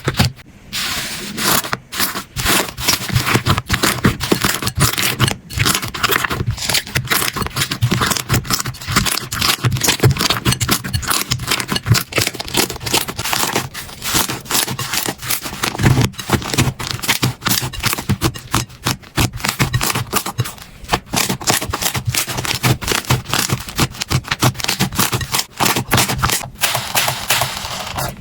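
Slime being pressed and worked by hand, giving a dense, irregular crackling and popping with scraping.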